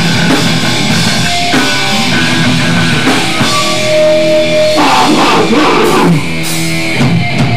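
Loud hardcore punk band music: distorted electric guitars with a driving drum kit.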